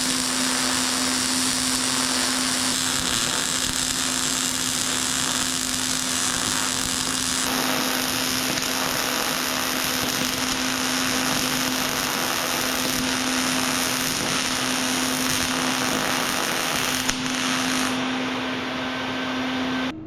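Electric power tool running steadily, a constant hum under a dense hiss, cutting off abruptly near the end.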